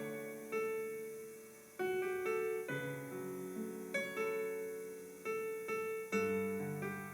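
Slow piano music: chords and single notes struck every half second to a second, each left to ring and fade.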